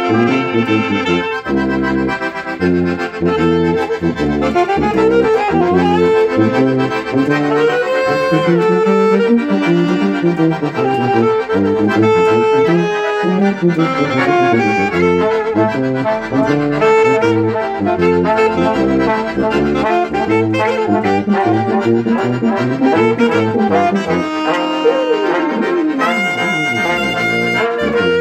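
A small brass band of trombone, trumpet, alto saxophone, accordion and sousaphone playing a tune together. The low bass drops out for a few seconds near the end.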